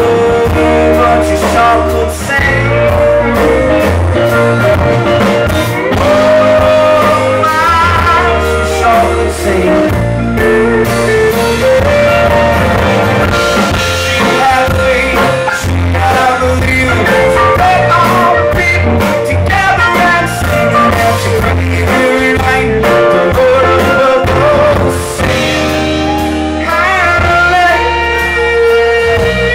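Live band playing a blues-rock song: electric and acoustic guitars, bass and drums, with a lead line of bending, sliding notes and singing at times.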